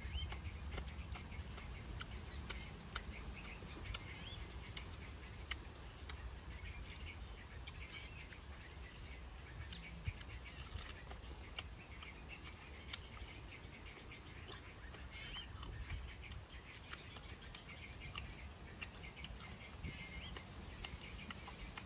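Birds chirping intermittently in the background over a low steady outdoor rumble, with scattered small clicks and crackles from leaves being handled.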